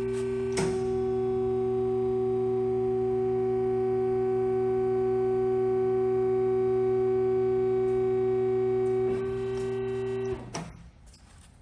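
Kalamazoo KC12AX automatic horizontal band saw running: a steady electric hum of several tones, with a click about half a second in. A little after ten seconds the hum winds down and stops as the machine shuts off.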